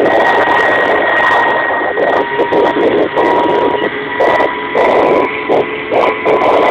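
Kamov Ka-26 helicopter in low flight, heard from inside the cabin: its twin nine-cylinder radial piston engines and coaxial rotors running loud and steady, with a steady high whine over the roar.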